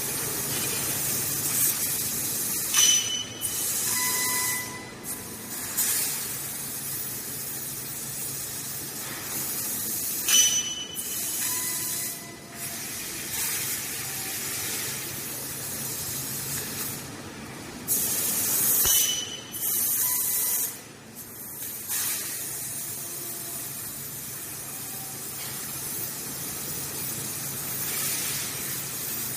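High-power fiber laser cutting sheet metal: a steady hiss of the cutting jet, stopping and restarting several times as the head moves between cuts, with brief short tones near some of the stops.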